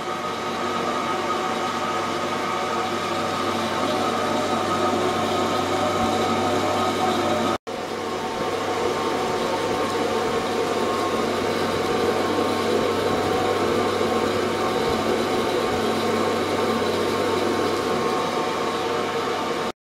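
Ultrasonic tank running with its liquid circulation going: a steady buzzing hum mixed with churning, hissing water. It cuts out for an instant about seven and a half seconds in, then carries on unchanged.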